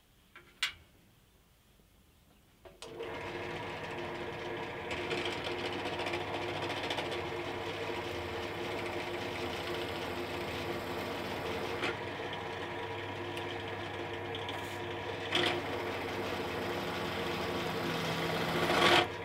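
A Silverline 350W pillar drill starts about three seconds in, after a click, and runs steadily with a motor hum while the bit cuts through an aluminium bar. The sound grows louder briefly around the middle and again just before the end.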